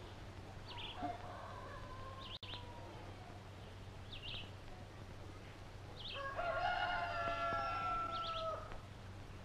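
A rooster crowing once, a long call of about two and a half seconds near the end, with short high bird chirps now and then.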